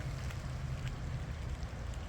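Steady rain falling, with a low wind rumble on the microphone and a few faint drop ticks.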